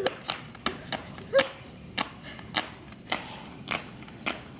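A jump rope turning on an asphalt road: sharp slaps in a steady rhythm, one every half second or so, as the rope strikes the ground with each skip.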